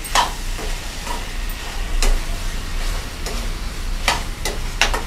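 Metal spoon stirring and scraping potatoes, peas, carrots and tomatoes around a steel kadhai, about eight strokes, over a low sizzle from the pan.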